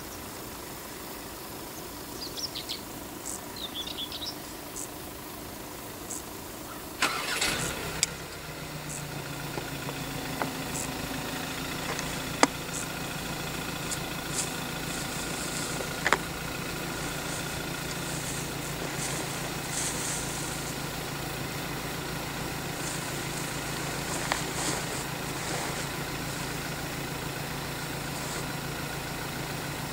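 A waiting car's engine starting about seven seconds in, then idling with a steady low hum. A few short bird chirps come just before it.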